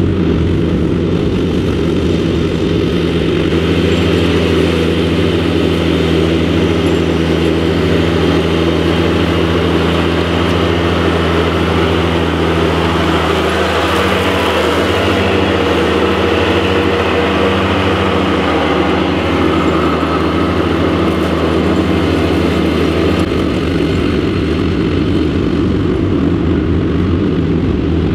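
A John Deere 455 garden tractor's three-cylinder diesel engine runs steadily at a constant throttle while the tractor mows with its 60-inch deck. It grows louder as it passes close by about halfway through, then moves off.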